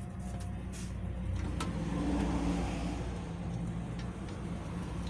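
Motor vehicle running: a steady low drone that swells slightly about two seconds in.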